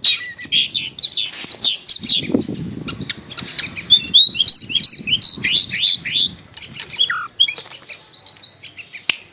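Long-tailed shrike (cendet) singing: fast runs of short, scratchy chattering notes mixed with brief clear whistles, with a short low rustle about two seconds in.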